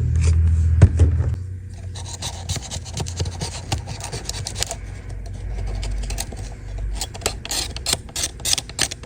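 Repeated scraping and scrubbing strokes on a dirty iPad case as grime and hair are cleaned off, the strokes coming faster near the end. A steady low hum sounds at first and stops about a second and a half in.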